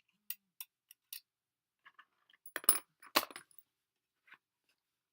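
Small metal parts clinking and tapping against each other: a few light, sharp clicks, then a louder cluster of clinks about two and a half to three and a half seconds in.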